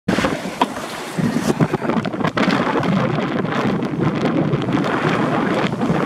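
Wind buffeting the microphone over water rushing and splashing along the hull of the Moore 24 sailboat under way in a strong breeze, with a few brief knocks in the first couple of seconds.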